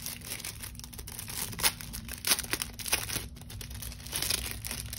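Paper packaging unwrapped by hand, rustling irregularly, with a couple of sharper crackles around the middle.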